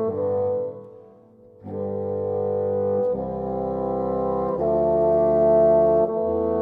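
Three bassoons and a contrabassoon playing slow, sustained chords. They break off briefly about a second in, come back in, and change chord twice later on, with a very low bass note entering about halfway through.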